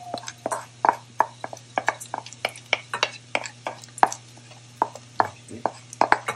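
A wooden spoon scraping and knocking against a ceramic bowl as dry lentils are pushed out of it into a stainless steel pan: a run of irregular sharp clicks and knocks, about three or four a second.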